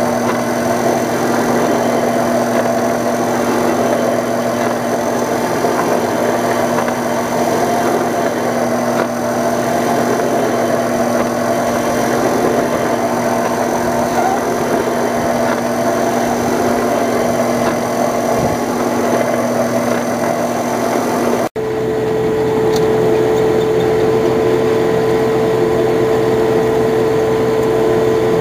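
LEI Products BB500 Bio-Burner running while burning wood chips: a steady machine hum over a rushing noise of air and flame. About 21 seconds in, the sound cuts out briefly and returns with a higher steady hum.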